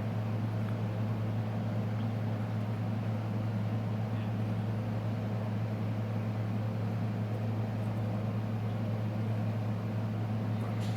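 A steady low machine hum that holds even throughout.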